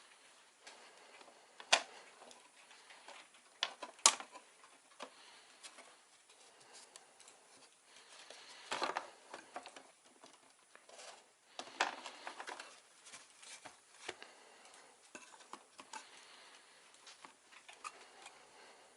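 Hands working on computer hardware: scattered small clicks and taps, with two sharper clicks in the first few seconds and short rustles of handling later.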